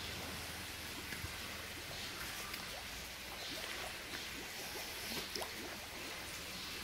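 Faint steady outdoor background hiss with a low hum underneath, and a few faint indistinct sounds around the middle.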